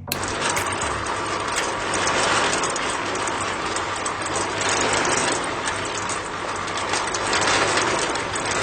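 A small motor running steadily with a dense, even mechanical whirr, starting abruptly.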